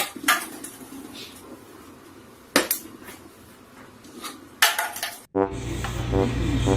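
A few separate sharp knocks or clinks of hard objects: two close together at the start, one about two and a half seconds in and a double near four and a half seconds. About five seconds in the sound cuts abruptly to a steady low hum with pitched tones over it.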